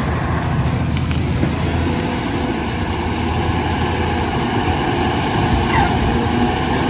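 Heavy vehicle engine, as of an excavator, running steadily and loudly with a low, even rumble.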